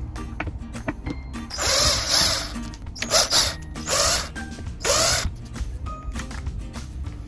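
Cordless power driver backing out the screws of a metal seat-cushion bracket in several short bursts, each rising in pitch as the motor spins up.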